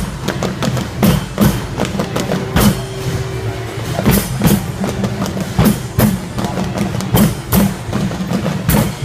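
A group of hand-played barrel drums beating a loud, driving rhythm, with sharp strokes roughly twice a second over a heavy low drone of drumming. A faint held note sounds briefly a couple of seconds in.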